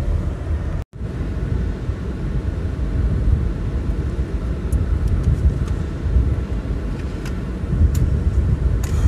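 Steady low rumble of a car heard from inside the cabin, with a brief dropout about a second in and a few faint ticks in the second half.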